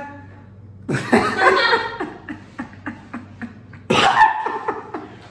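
A man bursts out laughing about a second in, trailing off into a run of short, quick chuckles, then laughs loudly again just before four seconds.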